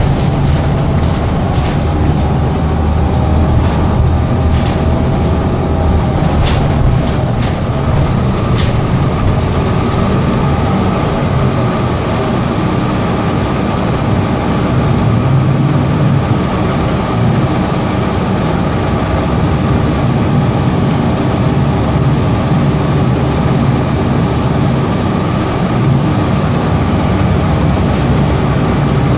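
Gillig Advantage hybrid city bus under way, heard from inside the passenger cabin: a steady low rumble of drivetrain and road, with a faint steady whine above it and a few brief rattles in the first several seconds.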